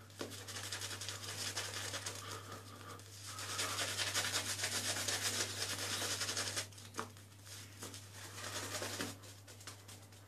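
Shaving-soap lather being rubbed into a full beard by hand: a fast, wet rubbing and crackling of foam against stubble, loudest in the middle few seconds, over a steady low hum.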